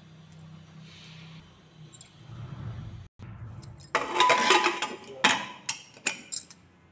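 Stainless steel lid of a pressure cooker being worked into the cooker's opening, clattering and scraping against the rim with a metallic ring, then a few sharp metal clicks as the lid seats and the whistle weight is put on.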